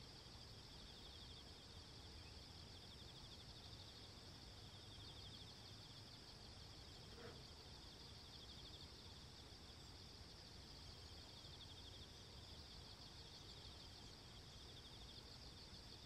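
Near silence, with a faint, steady, high-pitched insect chorus that pulses rapidly throughout.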